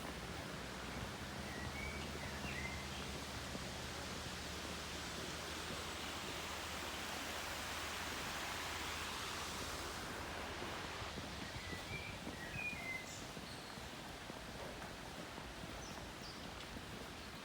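Outdoor background noise: a steady rushing sound with a low hum under it that swells to a peak around the middle and then eases off. A bird chirps briefly twice, once near the start and once after the middle.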